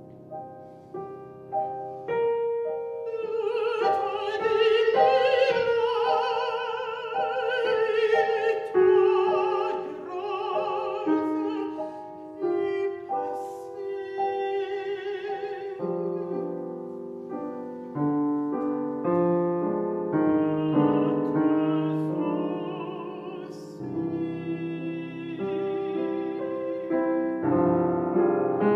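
A mezzo-soprano singing a classical art song with wide vibrato over grand piano accompaniment. Her voice drops out for a few seconds twice while the piano carries on, then returns.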